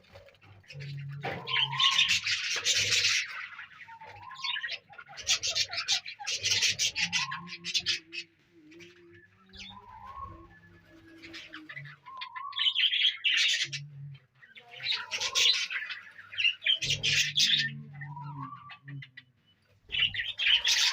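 A budgerigar colony chattering and chirping in repeated bursts, each lasting a second or two, with short gaps between them.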